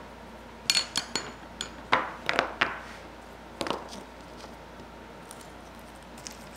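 Charcoal briquettes and a wooden-handled skewer being set into the cut-out pockets of a plywood tray: a quick run of about nine light knocks and clacks over the first few seconds, then they stop.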